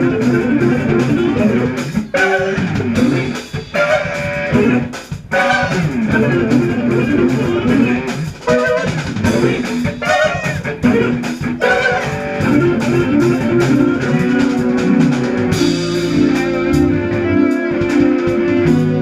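Jazz fusion band playing: electric guitar lines over bass guitar and drum kit, with bent guitar notes about halfway through and the band settling into held chords in the second half.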